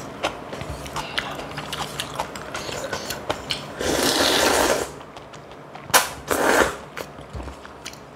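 Close-miked mukbang eating: a steady run of small wet clicks and smacks of chewing. Two louder slurps of kalguksu noodles come about four seconds in and again just after six seconds.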